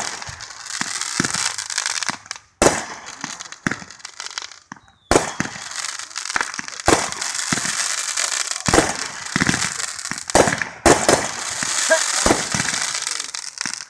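Consumer fireworks going off in a rapid run of sharp bangs with crackling in between, pausing briefly twice.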